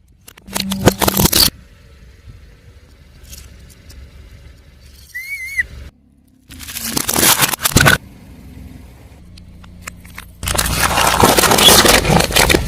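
A car tyre rolling over and crushing crunchy objects: three separate loud bursts of cracking and crunching, the last one about two seconds long. A short warbling squeak comes between the second and third.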